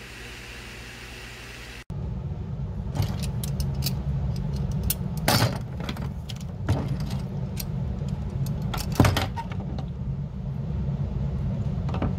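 For about two seconds, a steady hiss of water boiling in a metal pan holding brass drawer pulls and hinges. After a sudden cut, the metal hardware clinks and rattles as it is handled in a soapy sink, many sharp clinks over a steady low rumble.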